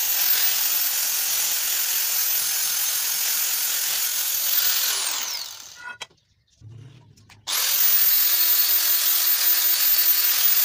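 Angle grinder grinding rust off an iron pipe, running steadily; about five seconds in it winds down with a falling whine and stops. After a short quiet spell it is running at full speed again, starting abruptly, about seven and a half seconds in.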